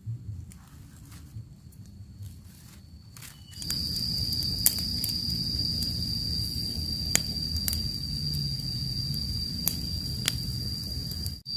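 Small campfire of dry twigs and leaf litter burning, a low steady rush of flame with occasional sharp crackles. A steady high-pitched drone runs over it.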